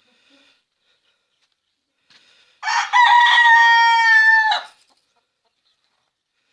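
A rooster crowing once, a single loud drawn-out crow of about two seconds starting between two and three seconds in, its pitch sagging slightly toward the end.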